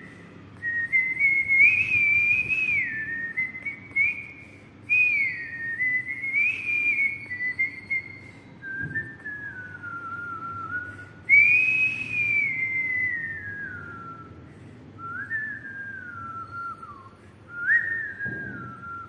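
A man whistling a tune through pursed lips: one clear, high pitch sliding between notes in phrases of one to three seconds, with short pauses between them. The loudest phrase comes about halfway through, and the tune sits lower in the second half.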